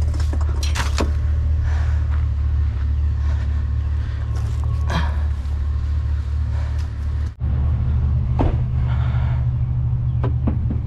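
Truck engine running with a steady low drone and a few light knocks. About seven seconds in it breaks off for an instant and carries on slightly higher in pitch.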